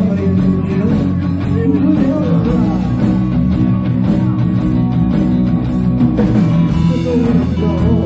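A live rock band playing, with electric guitars, an acoustic guitar and a drum kit.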